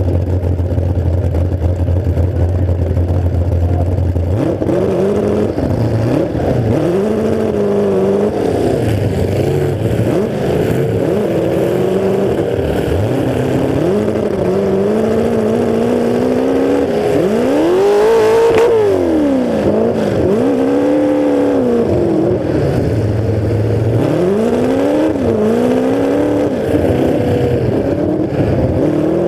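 Demolition derby car's engine, its exhaust running out through open pipes straight up through the hood, idling steadily for a few seconds and then revving up and down over and over as the car drives. The highest rev comes about 18 seconds in.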